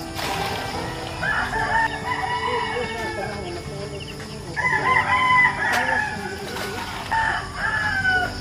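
Rooster crowing three times, each crow a long call: about a second in, around the middle, and near the end.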